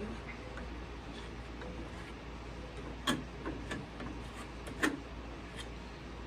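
A few sharp clicks and light knocks from tools being handled during glue work on plywood, the two strongest about three and five seconds in, over a steady low hum.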